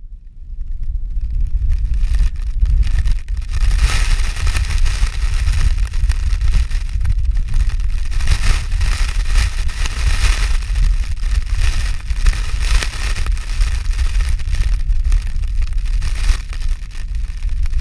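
Strong wind buffeting the microphone with a loud, rough low rumble, and a hiss that rises and falls with the gusts.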